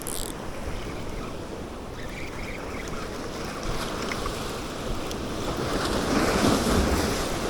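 Sea waves washing against shoreline rocks, with wind buffeting the microphone; a wave surges in louder about six seconds in.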